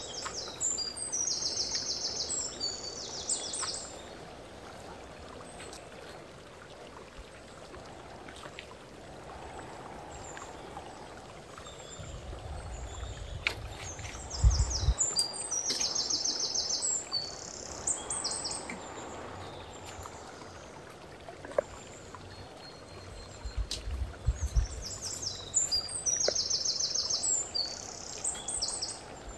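A songbird singing the same short phrase of rapid high trills three times, about every eleven seconds, over steady outdoor background noise. Two brief low rumbles come about halfway through and again near the end.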